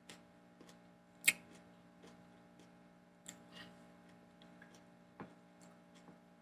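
Eating sounds from chewing lettuce-wrapped tacos: scattered short wet clicks and crunches, with one sharper crunch about a second in, over a steady low hum.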